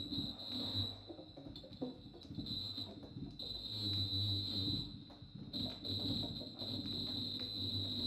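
Free-improvised music: a double bass bowed low with a scratchy, grinding texture, under a high, steady whistling tone that drops out and comes back several times.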